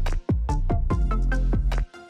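Electronic background music with a steady beat and heavy bass, briefly dropping out twice.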